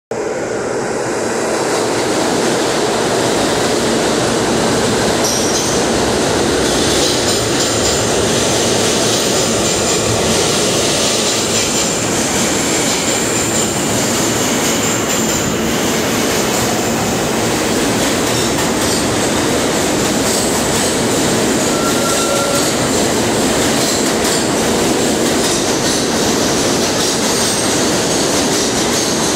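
R160 New York subway train pulling into the station along the platform and braking, a steady loud rumble of steel wheels on the rails with some wheel squeal.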